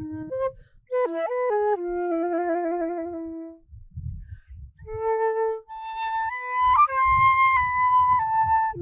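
A flute-like wind instrument playing a slow melody of held notes that step up and down in pitch, one long note wavering with vibrato, and a short pause between phrases about four seconds in.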